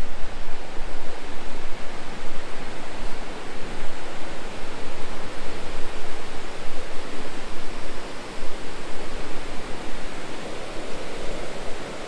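Waterfall rushing steadily: an even, unbroken wash of falling-water noise.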